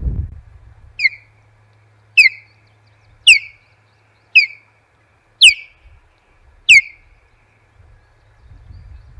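Osprey calling close to the microphone: six loud whistled calls about a second apart, each a sharp downward slur.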